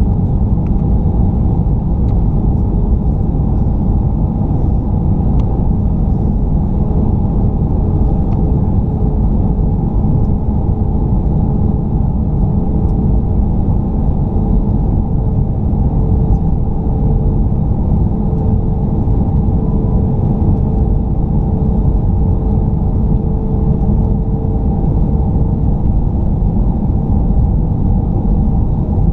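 Jet airliner cabin noise in flight: a steady, loud low rumble of engines and airflow heard through the fuselage, with a faint steady hum above it.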